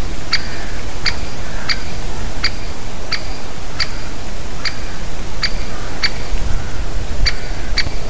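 Great spotted woodpecker calling nearby, giving short, sharp single 'kik' notes over and over, about one every two-thirds of a second, with a brief pause about six seconds in. Under the calls runs a low steady rumble.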